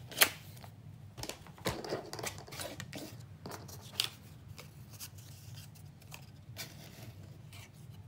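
Cardstock and paper being handled on a craft table: scattered taps, clicks and paper rustles as pieces are moved and set down, with one sharp clack just after the start.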